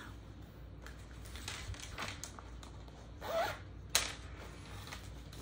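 Quiet handling noises of craft supplies on a tabletop, with light rustles and small taps. A sharp click about four seconds in is the loudest sound, just after a brief rising hum from a voice.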